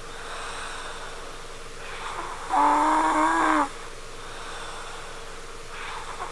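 A sleeping girl snoring. Each breath gives a soft breathy rush, then a whining, pitched tone about a second long that sounds like a crying baby or a cat; one full breath falls in the middle.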